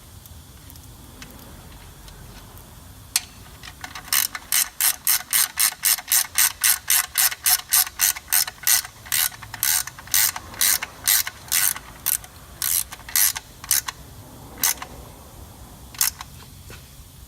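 Ratchet wrench clicking in quick, even strokes as the oil sump drain plug is wound back in, at about three to four clicks a second, slowing and ending in a few single clicks near the end.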